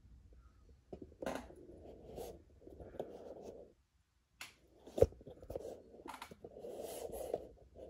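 Handling noise from the camera being moved: uneven rubbing and scraping with a few clicks, one sharp click about five seconds in, and a short pause just before it.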